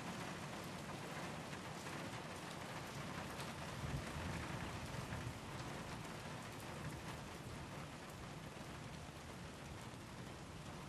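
Steady heavy rain falling, with a low rumble that swells and fades about four seconds in.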